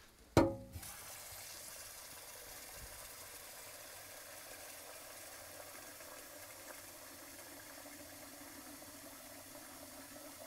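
A sharp knock about half a second in, then water running from a tap in a steady stream.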